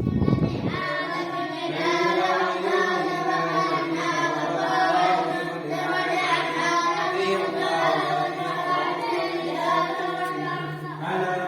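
Background vocal music: a voice singing or chanting in long held notes, coming in about a second in after a brief low rumble.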